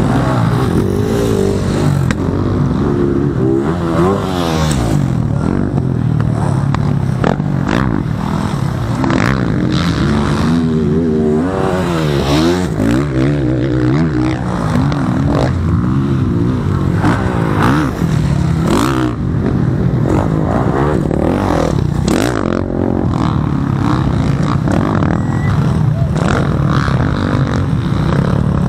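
Motocross bikes racing round a dirt track, their engines revving up and down over and over as riders work the throttle and shift gears.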